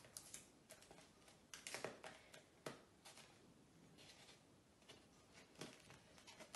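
Faint rustles and light crackles of paper plates and sellotape being handled and pressed down around the plate rim, a few short ones with the clearest about two seconds in.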